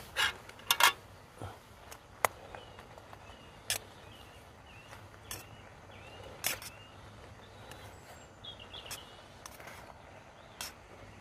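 Spoon stirring rice, chicken and prawns in a small camping pot on a gas stove, with irregular sharp clicks and knocks as the spoon strikes the pot.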